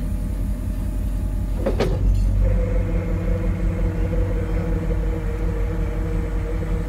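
Tow truck's engine running steadily. About two seconds in there is a short sharp sound, and then a steady higher hum joins the engine.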